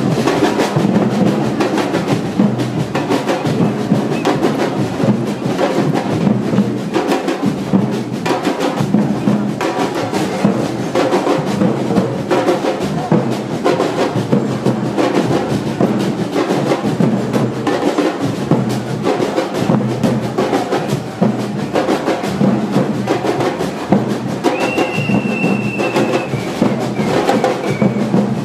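Street drumming band of large surdo bass drums and smaller drums struck with sticks, playing a continuous, dense carnival rhythm.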